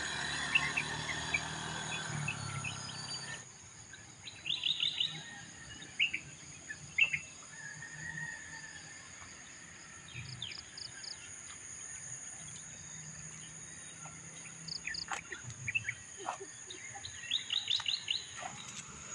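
A motor scooter going past, its engine noise ending abruptly about three and a half seconds in. Birds then chirp in short quick runs of high notes, several times, over a steady high insect drone.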